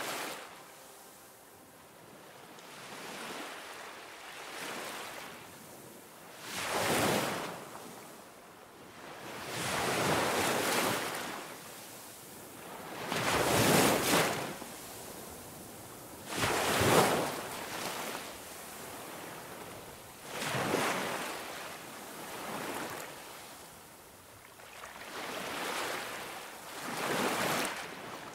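Ocean surf: waves breaking and washing in, swelling and ebbing about every three seconds, with a soft hiss between them.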